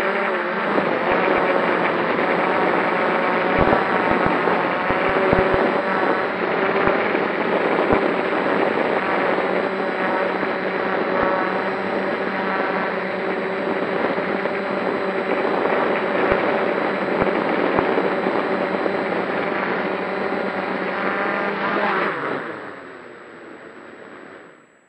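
Electric motors and propellers of a multirotor drone carrying a maximum payload, running with a steady whine of several pitched tones as it descends. About 22 seconds in the motors spool down sharply as it settles onto the ground, and the sound stops near the end.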